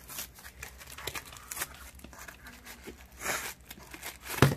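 Cardboard and packing tape being torn open by hand, with crinkling plastic wrap and scattered small scratches and clicks. A longer rustling tear comes about three seconds in, and a thump near the end.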